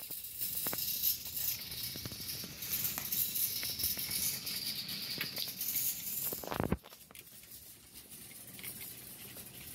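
A shopping cart being pushed along a store floor, its wheels and frame rattling with many small clicks. It ends in a sharper knock about six and a half seconds in, after which it is quieter.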